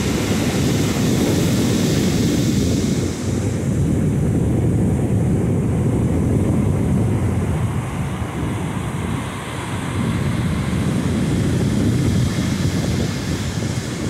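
Wind buffeting the microphone in a steady low rumble, over the hiss of ocean surf washing up the beach; the surf hiss is strongest in the first few seconds.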